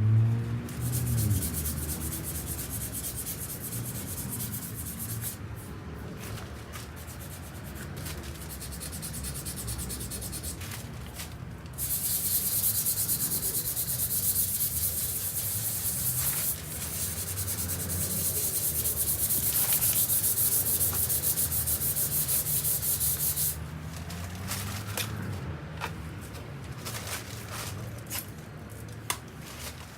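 Sanding disc on a power sander rubbing down body filler with 240-grit paper: a continuous hissing scrape over the sander's hum. It grows louder partway through, then eases back later on.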